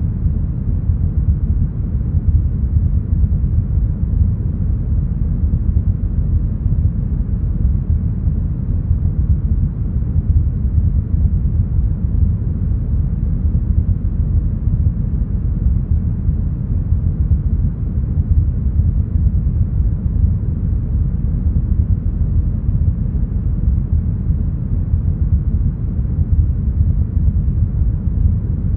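Deep, smoothed brown noise: a steady, even low rumble with its weight in the bass and almost no treble.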